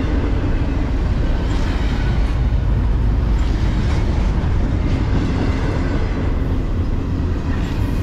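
Double-stack intermodal well cars of a Norfolk Southern freight train rolling past at low speed: a steady, heavy rumble of steel wheels on rail.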